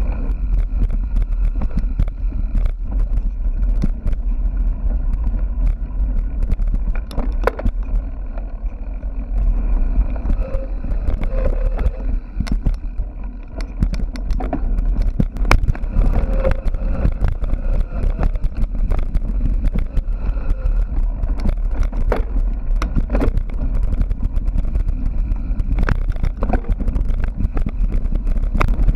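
Mountain bike ridden fast over rough ground: a steady wind rumble on the microphone, with frequent knocks and rattles from the bike.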